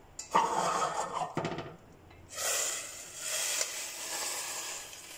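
A stainless steel pot knocks and scrapes briefly as it is handled. About two seconds in, cooked ramen noodles and broth are poured from it into a ceramic soup plate, a wet hissing splash lasting a few seconds.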